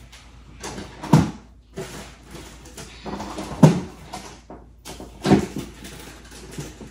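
Rummaging in a kitchen: doors and drawers opening and closing and things being moved about, with three sharper knocks about a second in, just past halfway and past five seconds, and the refrigerator door opening near the end.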